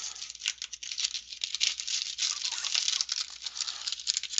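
The wrapper of a sports card pack being torn open and crinkled by hand, a continuous run of crackling with many sharp crackles.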